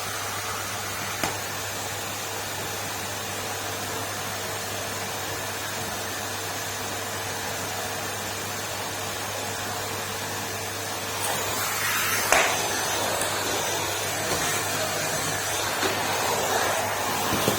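Numatic Henry canister vacuum cleaner running with a steady drone and low hum. About eleven seconds in the sound gets louder and rougher, with a sharp knock a second later.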